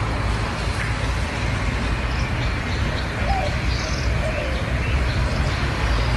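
Outdoor street ambience: a steady low rumble and hiss, with a few faint bird chirps about three to four seconds in.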